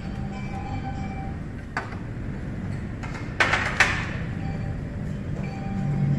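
Ceramic plates knocking and clinking against the table as they are picked up and set down: three sharp knocks, the loudest two close together about three and a half seconds in, over a low steady room hum.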